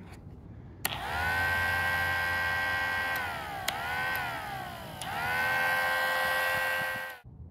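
Homemade miniature ACA P-15 mechanical siren, with a small battery-powered motor spinning the chopper inside the horn. Switched on with a click about a second in, it winds up fast to a steady wail over a low motor hum. It drops in pitch and rises again twice with small switch clicks, then stops abruptly shortly before the end.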